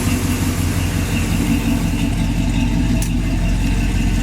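A 1966 Chevrolet truck engine idling steadily, with its electric cooling fan running, just switched on as the engine reached about 185 degrees.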